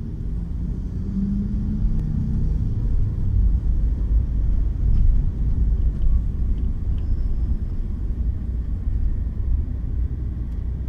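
Car engine and road rumble heard inside the cabin as a manual car pulls away gently under light throttle. A low engine note rises slightly over the first couple of seconds, then settles into a steady low rumble.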